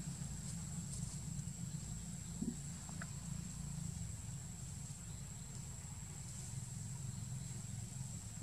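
Outdoor ambience: a steady low rumble under a constant high-pitched whine, with a couple of faint short chirps about two and a half and three seconds in.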